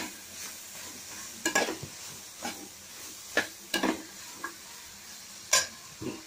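A slotted metal spatula scraping and knocking against a metal pot about seven times, at irregular intervals, as mushrooms are stirred while they fry. A steady sizzle of frying runs underneath.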